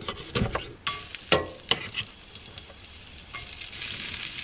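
A few sharp knocks of a knife and food on a cutting board and into a cast-iron skillet. About three seconds in, a steady sizzle builds as sliced onion fries in the hot bacon grease.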